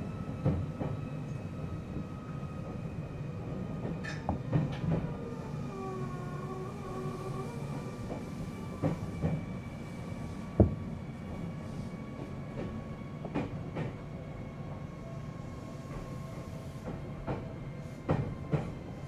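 Seibu 4000 series resistance-controlled electric train running, heard from inside a passenger car: a steady rumble with a faint whine that falls slowly in pitch, and irregular clicks and knocks from the wheels on the rail joints. A brief wavering squeal comes about six seconds in.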